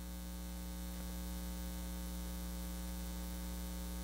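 Steady electrical hum from the sound system: a low buzz of several unchanging tones.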